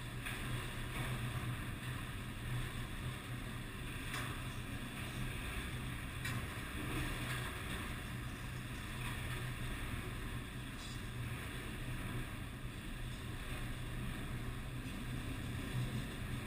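Freight train of autorack cars rolling past, a steady rumble of steel wheels on rail with a few faint clicks.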